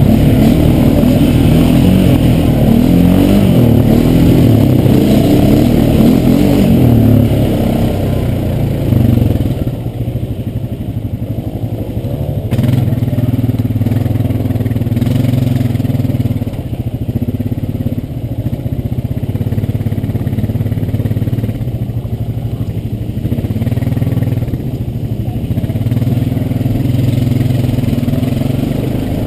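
ATV (quad bike) engine heard from on board, working hard with its pitch rising and falling during the first eight seconds or so as it climbs a steep rocky trail, then running more quietly at lower revs, with the revs rising and falling.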